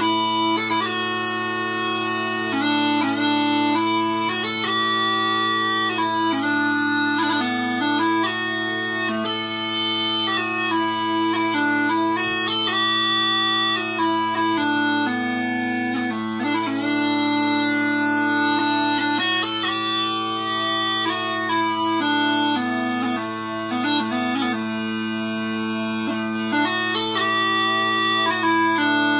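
Quietpiper (Robert Felsburg) small pipes, a four-drone set, playing a tune: a quick chanter melody over a steady, unbroken drone.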